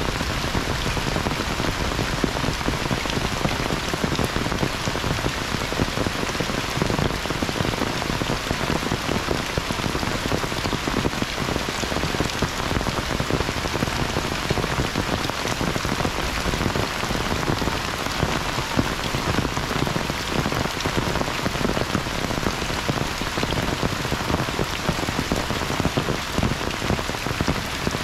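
Heavy rain falling steadily on flooded rice paddies and foliage: a dense, even hiss of countless drops that doesn't let up.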